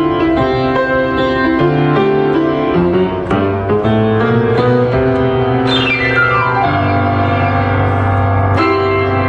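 Steinway piano played with rhythmic chords, then a fast run sweeping down the keyboard about six seconds in, landing on a held low chord before the chords resume.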